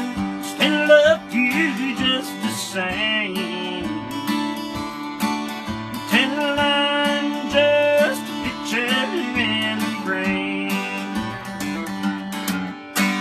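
Acoustic guitar strummed, with a man's voice singing drawn-out closing lines over it, and a last strum near the end.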